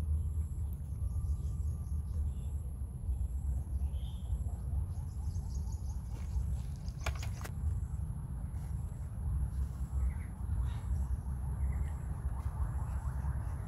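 Outdoor background sound: a steady low rumble with faint bird chirps and a steady high whine. Two sharp clicks come close together about seven seconds in.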